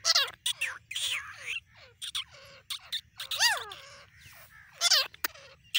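Grey francolin calling: a quick, irregular series of short pitched calls, most sliding down in pitch, with one rising-and-falling note about halfway through.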